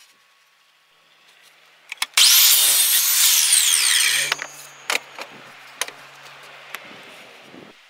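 Electric miter saw switched on with a click, its motor and blade spinning up to a loud high whine for about two seconds as it cuts wood, then winding down with falling pitch once the trigger is released. A few light knocks follow as the cut piece is handled.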